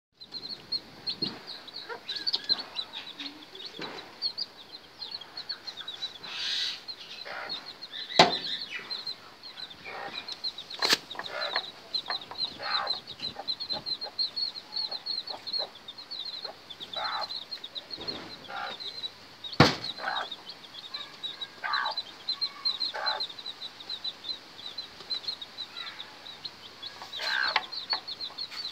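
Young chicks peeping continuously in quick, high cheeps, with a hen's low clucks now and then. A few sharp knocks stand out, the loudest about eight seconds in and again near twenty seconds.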